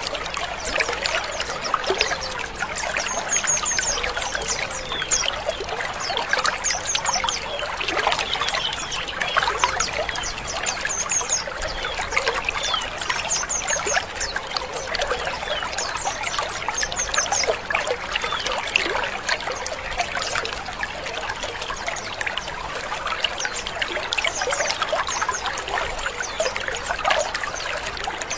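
A caged colony of white-eyes (pleci, Zosterops) calling all at once: a dense, steady chatter of many overlapping twitters and chirps. Repeated high trilled phrases and rough 'ngrik' calls stand out from it.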